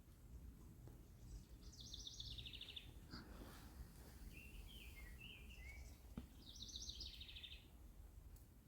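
A small bird singing twice, each time a quick high trill that falls in pitch, with a few softer chirps in between, over a faint low outdoor rumble.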